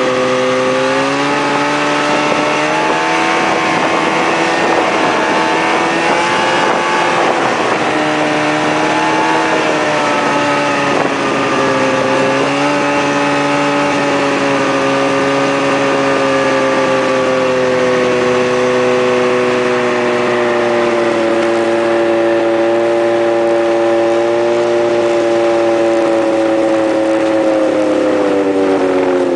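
Snowmobile engine running under way, heard from the rider's own seat: a steady drone that rises in pitch about a second in, wavers and dips briefly a few seconds later, then holds, and drops in pitch near the end as the machine slows.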